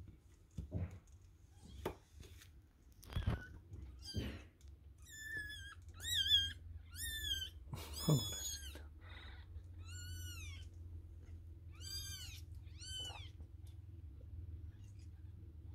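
Young kittens mewing repeatedly, about seven thin, high-pitched mews in the middle of the stretch, complaining as they jostle at their mother. Before the mews come soft rustling and scuffing sounds.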